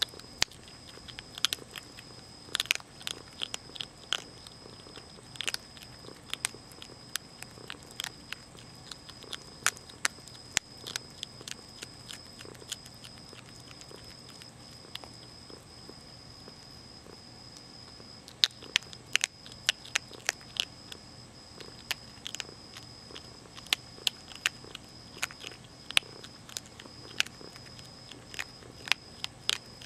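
Young Virginia opossum crunching dry cat food kibble: sharp crunches in quick clusters, with a pause of several seconds around the middle.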